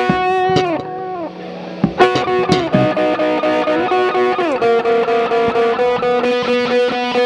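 Worship band instrumental: an electric guitar through effects plays a lead line with bent notes, and the full band comes in with a steady beat about two seconds in, the guitar then holding a long note.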